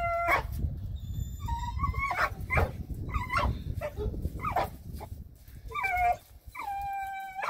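Dogs whining and yipping over and over as they strain against each other on a three-way tug rope. Short high whines are followed near the end by one long, steady whine.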